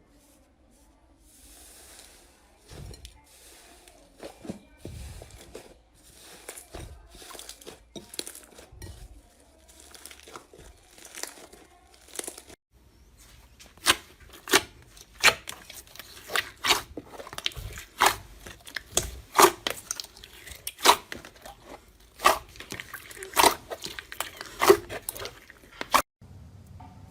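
Slime being handled: soft crinkling and crackling for about the first half, then, after a short break, a run of sharp pops and snaps roughly once or twice a second.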